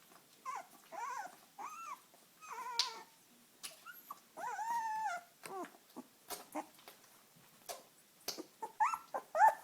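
A 19-day-old Dalmatian puppy whimpering: a string of short, high cries that rise and fall, with pauses between them, and a louder run of cries near the end.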